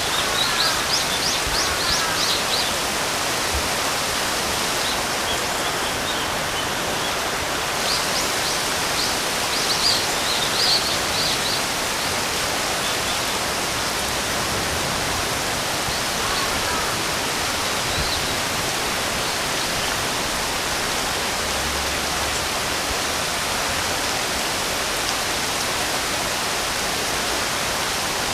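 Steady rain noise, with birds chirping in quick series of high notes during the first couple of seconds and again around eight to eleven seconds in.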